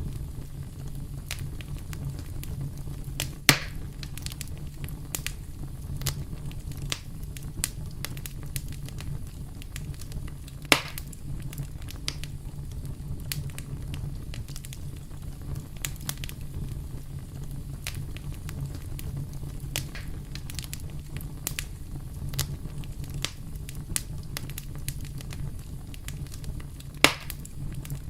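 Wood campfire burning: a steady low rumble with frequent small crackles and three louder sharp pops from the burning wood.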